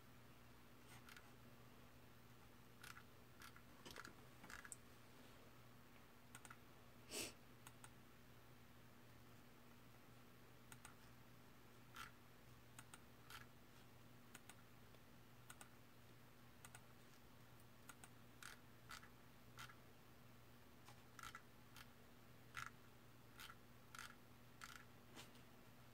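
Near silence: faint, irregular clicking of a computer keyboard, a couple of dozen light key presses with one louder click about seven seconds in, over a low steady hum.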